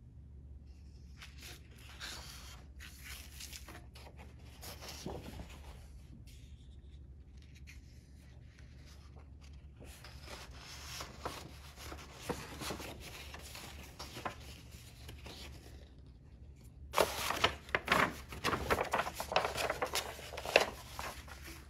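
Sheets of drawing paper being handled: faint rustles and light taps, then louder crinkling rustles for the last few seconds as the pages are flipped over. A low steady hum lies underneath.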